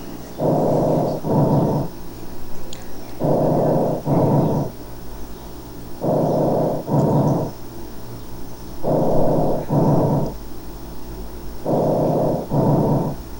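Recorded tracheal breath sounds, the glottic component of normal breath sounds as heard by stethoscope over the larynx and trachea: a rushing noise of air on each inhalation and exhalation, made by turbulent airflow through the glottis. Five breaths, each an in-breath and an out-breath with a short gap between, come about every three seconds.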